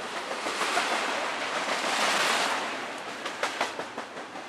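Norfolk Southern double-stack intermodal train's well cars rushing past close by: a steady rushing noise that swells about two seconds in, with a few sharp clacks from the wheels near the end.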